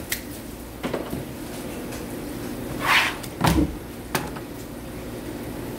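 A few knocks and wet handling sounds on a plastic cutting board: a water spray gun set down and a rinsed, skinned fish fillet laid on the board, with a short wet swish about three seconds in followed by a low thump.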